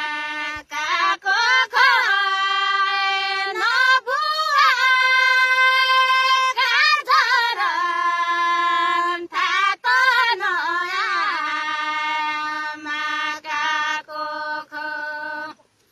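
A female voice singing a Nepali folk song unaccompanied, with long held notes and wavering pitch ornaments, broken by short breaths. The singing stops just before the end.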